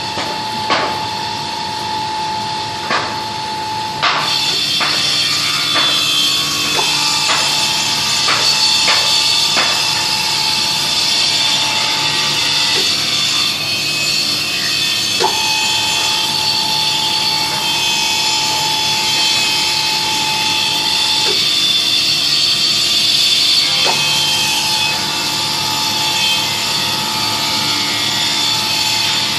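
Pipe-bending machine working a metal pipe: a steady mechanical running sound, with sharp metallic clicks and knocks during the first ten seconds and a steady tone that comes and goes several times.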